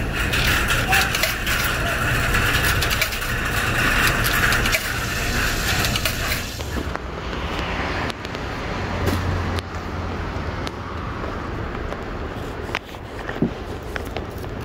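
Running commercial laundromat washers and dryers make a steady, loud noise with clicking at a machine's controls. About seven seconds in it cuts to a quieter outdoor traffic hum with the handling of laundry bags at a car.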